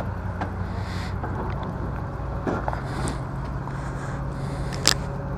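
Engine idling steadily with a low hum, and a single sharp click near the end.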